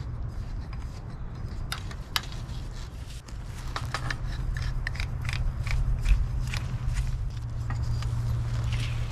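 Quick, small sharp clicks and snipping handling noises, sparse at first and coming thick and fast from about three seconds in, over a steady low hum.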